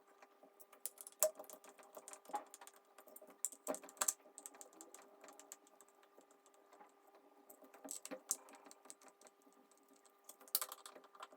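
Sped-up, faint, irregular clicking and ticking of a screwdriver working out the small screws of an old mortice lock's front plate, with a few louder clicks, over a faint steady hum.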